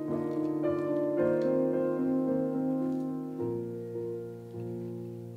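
Background piano music with slow, held notes that change every second or two and get softer toward the end.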